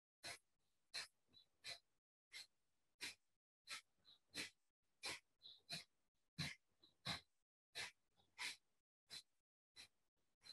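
A rapid, even series of sharp, forced exhalations, about one and a half a second, each a short hiss of breath. This is Kapalabhati yoga breathing: a soft passive inhale, then the belly snaps in to push each breath out.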